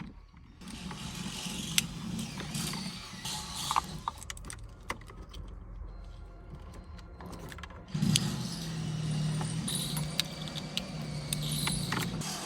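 Wires and plastic harness connectors being handled and joined, with scattered sharp clicks and rustling over a steady low hum that grows louder about two-thirds of the way in.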